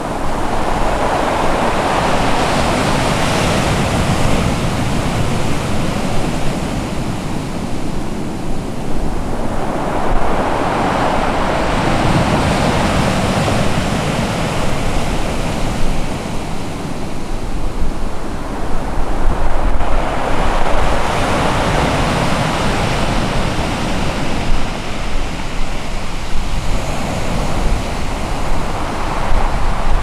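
Ocean surf breaking on the shore, a wave surging in about every nine seconds over a continuous wash of water.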